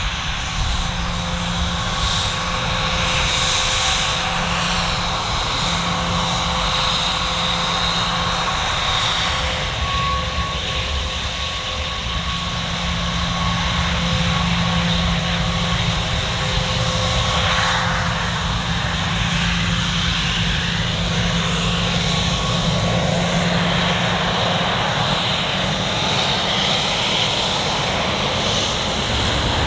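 Twin turbofan engines of a Bombardier Global 6000 business jet running at low power as it taxis and lines up, a steady jet whine with several held tones. Near the end a tone begins to rise and the sound grows louder as the engines start to spool up for take-off.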